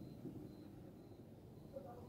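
Near silence: low room tone with a single faint tick near the end.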